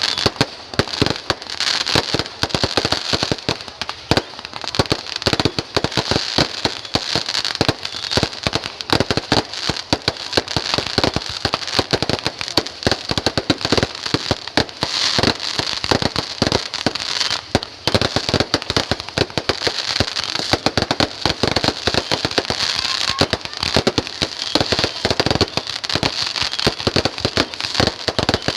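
Fireworks going off without a break: many sharp bangs and cracks a second, close together, over a steady crackling hiss.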